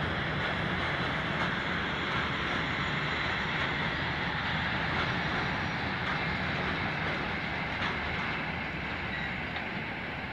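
Freight train wagons, boxcars and tank cars, rolling steadily past: a continuous rumble of steel wheels on rail with a few faint wheel clicks.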